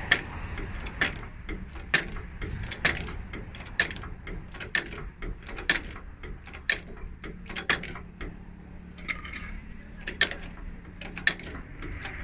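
A hand-worked metal ratchet tool clicks sharply and evenly, about once a second, while a bus wheel is being changed. A steady low hum runs underneath.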